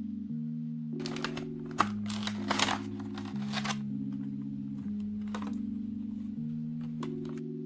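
Clear plastic doll packaging crinkling and clicking in short rustles as it is handled, loudest about two seconds in, over background music of slow held chords.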